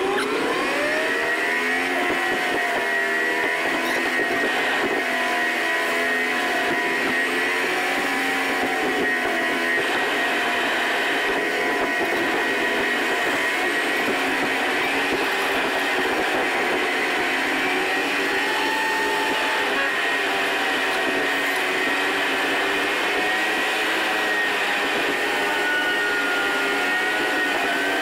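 Car engine and road noise heard from inside the car while driving; the engine's pitch rises at the start as it accelerates, then holds fairly steady at cruising speed.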